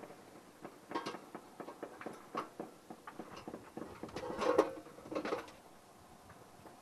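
Sporadic gunfire: irregular sharp shots, a few spread through the first three seconds and a denser, louder cluster about four and a half seconds in.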